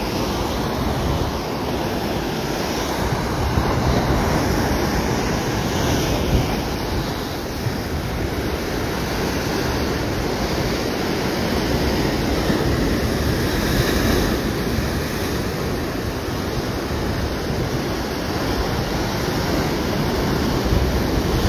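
Ocean surf breaking and washing over a sandstone rock shelf: a continuous rushing wash that swells and eases as each wave comes in.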